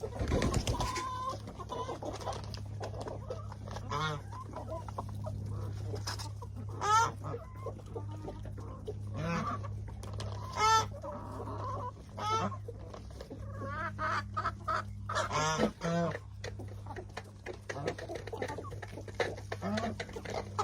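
A flock of backyard chickens clucking, with short calls scattered throughout, as they crowd in to eat treats. A steady low hum runs underneath.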